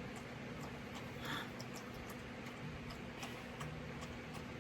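Faint, irregular light ticking clicks over a steady low hum, with one brief soft rush about a second in.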